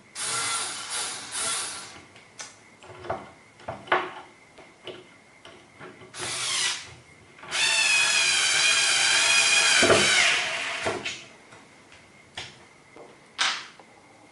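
Power drill running in short bursts among scattered clicks and knocks, then a longer run of about three seconds in the second half with a steady whine that drops in pitch as it stops.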